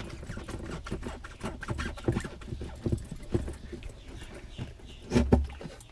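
Hands twisting and working a toilet waste hose off the plastic outlet spigot of a Lectrasan treatment unit: scattered creaks, rubbing and small knocks, with one louder knock about five seconds in.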